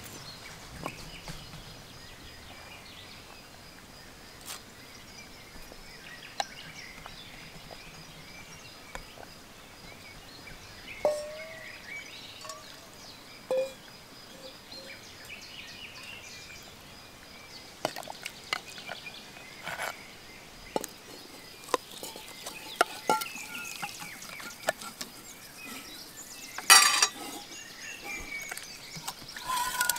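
Birds chirping over quiet outdoor background noise, then sharp metal clinks and scrapes of a ladle against steel bowls and a stone pot while dizi broth and meat are served out. Near the end a louder clatter sounds as the meat and chickpeas are tipped into a steel bowl.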